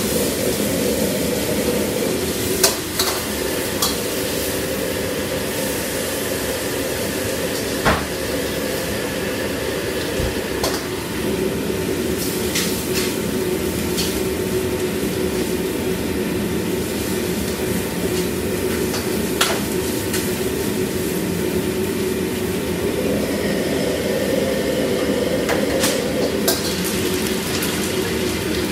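Cooking at a commercial wok range: a metal spatula and ladle scrape and clank against steel woks and pans, with food frying in the woks. Over a steady roar of the gas burners and extraction, the sharp clanks come every few seconds and are loudest about three and eight seconds in.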